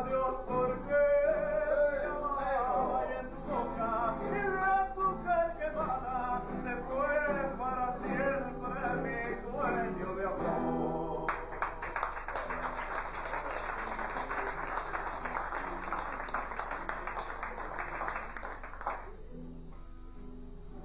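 A man singing a folk song over acoustic guitar, with long, wavering held notes. About eleven seconds in the singing ends and applause breaks out suddenly, dying away after about eight seconds.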